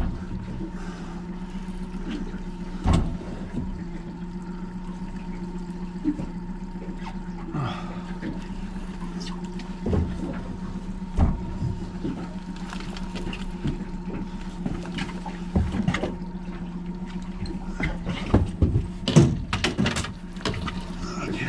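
Honda outboard motor running steadily at low speed, with scattered knocks and bumps, several near the end.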